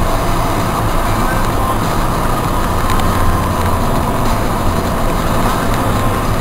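Car driving at road speed heard from inside the cabin: a steady drone of engine and tyre noise.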